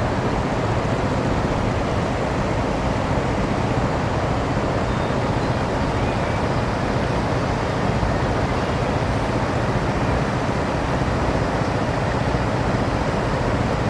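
River water rushing in a steady, continuous flow.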